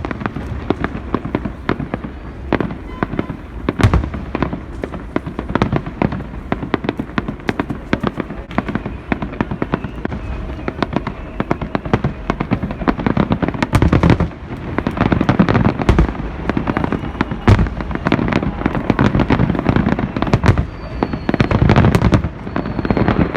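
Fireworks display: a continuous rapid crackle of bangs, with heavier booms standing out every few seconds.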